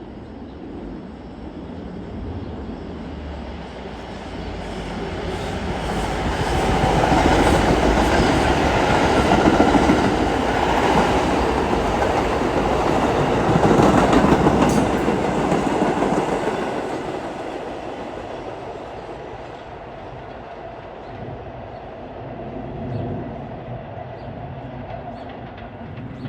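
R142 subway train passing by on the rails. It grows louder over a few seconds, stays loud for about ten seconds with wheel-on-rail running noise, then fades away.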